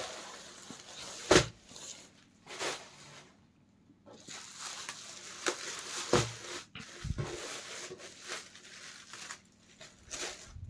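Thin plastic packaging rustling and crinkling as it is handled, with a sharp crackle about a second in and scattered smaller crinkles after a short quiet spell.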